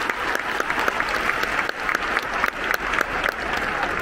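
Large crowd of football supporters applauding in a stadium stand, with sharp individual hand claps from fans close by.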